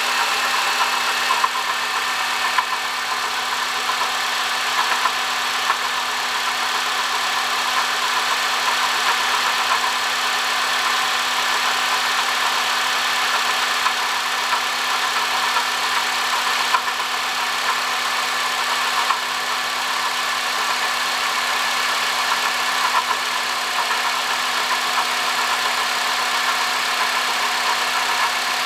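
Honda Odyssey engine running at idle with an abnormal noise from its water pump, a steady whir with small irregular ticks. The sign of a failing water pump: the noise went away once the pump was replaced.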